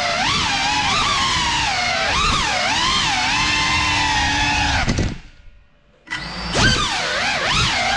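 CineLog35 cinewhoop FPV drone's motors and propellers whining, the pitch rising and falling constantly with the throttle. About five seconds in the whine drops away almost to silence for about a second as the throttle is cut, then returns with a sharp rising sweep as it powers up again.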